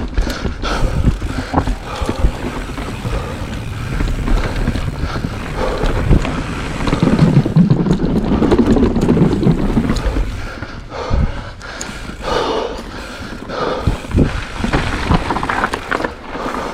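Kona Process 134 full-suspension mountain bike riding down a loose, rocky trail: wind buffeting the microphone over the rumble of tyres on dirt and rocks, with frequent sharp knocks and rattles from the bike over bumps.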